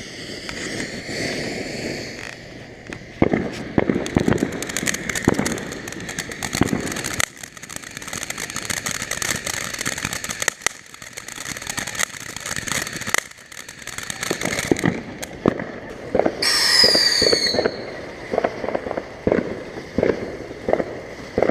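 Ground fountain fireworks burning with a steady hiss, then crackling with many sharp pops from about three seconds in. About sixteen seconds in, a high whistle falls in pitch for about a second.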